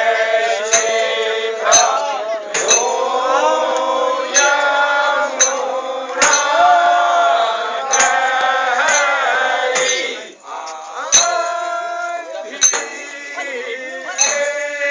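Men singing a Kumaoni Khadi Holi song together in chorus, with a sharp struck beat about once a second. The singing drops briefly about ten seconds in, then picks up again.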